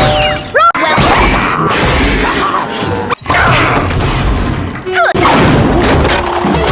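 A run of cartoon-style sound-effect clips over music, cut together abruptly about three times: booms, crashes and shattering, with quick whistling pitch sweeps just before two of the cuts.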